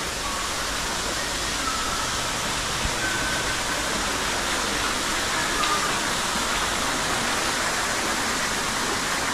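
Steady rushing noise of falling or running water, even throughout, with a few faint, short high tones over it.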